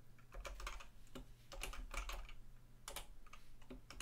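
Computer keyboard typing: irregular keystrokes in quick bunches of a few per second.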